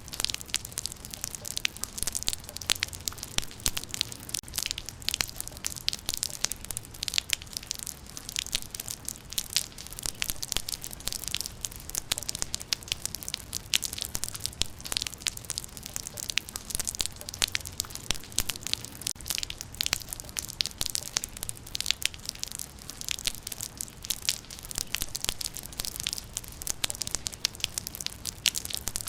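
Rain falling steadily, a dense run of sharp individual drop hits over a constant hiss, with no let-up.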